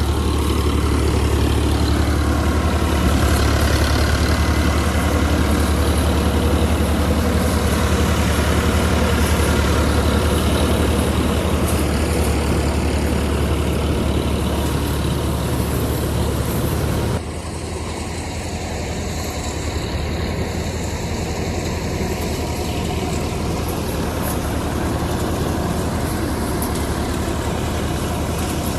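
Sonalika DI 42 RX tractor's diesel engine running steadily; the sound drops abruptly in loudness a little over halfway through, then carries on.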